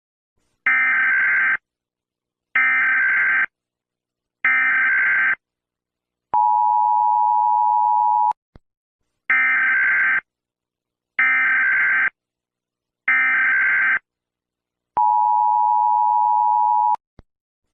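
Emergency Alert System tones: three short bursts of the screeching SAME data header, then about two seconds of the steady two-tone attention signal. The sequence plays twice, with a small click after each attention tone.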